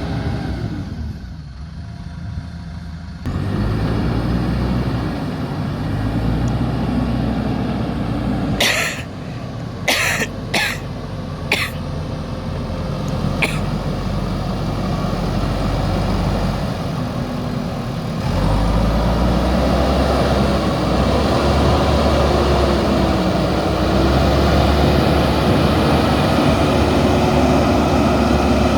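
Backhoe loader's diesel engine working, a steady heavy drone that changes pitch abruptly about three seconds in and again around eighteen seconds. A handful of short sharp noises cut through between about nine and thirteen seconds in.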